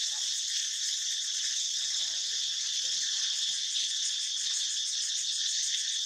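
Steady, shrill chorus of insects, many trilling at once without a break.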